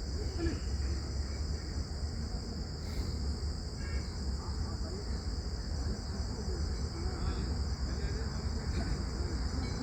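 Steady chorus of crickets chirring, a continuous high shrill trill, over a low rumble.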